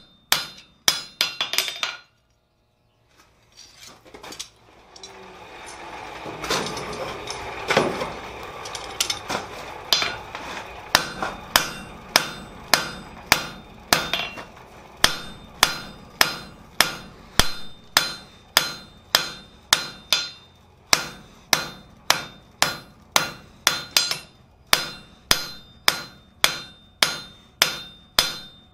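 Hand hammer striking a hot steel bar on the anvil, drawing out a blank for blacksmith's tongs: sharp blows with the anvil ringing. The blows stop about two seconds in, with a brief silence. A rushing noise then builds up, and steady hammering resumes at about two blows a second.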